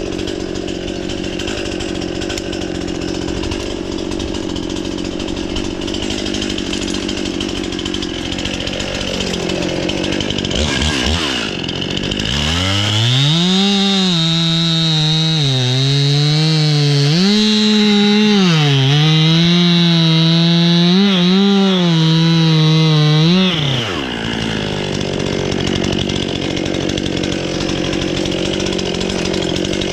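Two-stroke chainsaw bucking a log into firewood. For about ten seconds in the middle it runs at full throttle, its high pitch repeatedly dipping and recovering as the chain loads in the wood. Before and after that it runs at a lower, rougher note.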